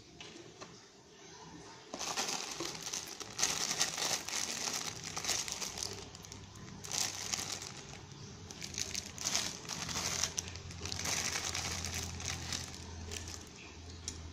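Clear plastic kit parts bags crinkling and rustling as they are handled, in irregular bursts from about two seconds in.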